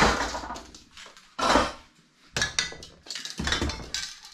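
Metal aerosol spray-paint cans clinking and knocking against each other as they are lifted out of a cardboard box and handled, in several separate clatters with the loudest right at the start and about a second and a half in.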